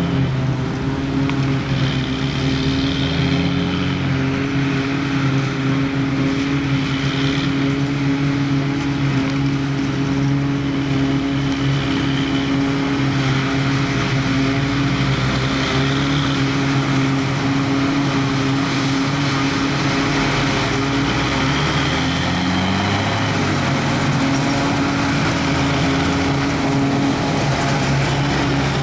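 Claas Jaguar self-propelled forage harvester chopping grass under load: a steady engine drone with a dense rush from the chopper and crop blower. A Fendt tractor pulling the silage trailer alongside adds its own engine, one note rising briefly about twenty seconds in.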